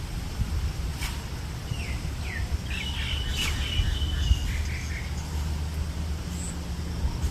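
Birds calling: a few short chirps and one longer trilling call, over a steady low rumble of wind on the microphone.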